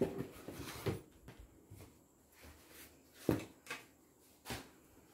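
Rustling and handling of folded silk sarees as one is set down on top of another, with a few sharp knocks, the loudest about three seconds in.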